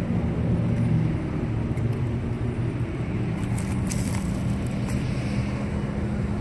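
Steady low hum of a running engine, with a few short clicks about three and a half to four seconds in.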